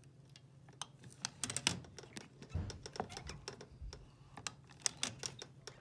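Hand pop rivet gun being squeezed in repeated pumps, giving a series of sharp, irregular metallic clicks as it pulls a pop rivet through a steel L channel and ceiling T-bar.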